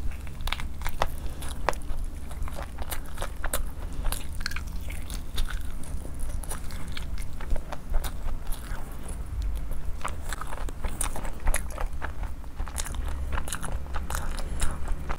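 A person chewing and biting food, a continuous run of short crisp clicks and crunches, with a steady low hum underneath.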